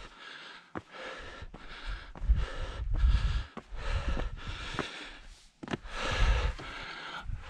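A man breathing hard close to the microphone, in quick, regular breaths, catching his breath after a steep scramble up a rock face.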